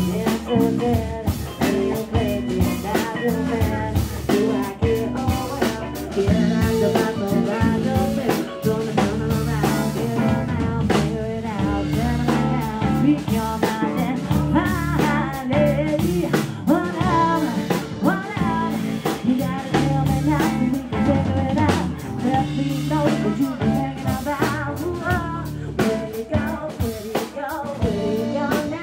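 Live band music: a woman singing over electric bass, electric guitar and a drum kit.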